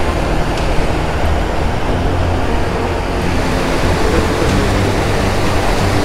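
Steady rush of river water pouring over a weir.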